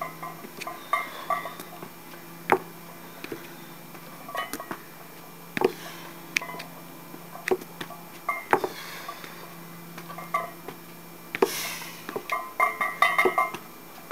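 Iron plates on a loaded 155 lb barbell clinking and rattling on the bar with each step-up rep, with a sharp knock every one to three seconds as a foot lands on or leaves the low wooden step.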